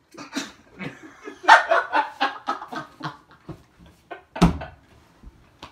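A person laughing in short, breathy bursts, with one sharp thump about four and a half seconds in.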